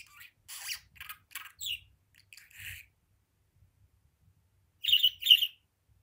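Budgerigar chattering in short high chirps, then after a pause giving two loud, sharp chirps about five seconds in.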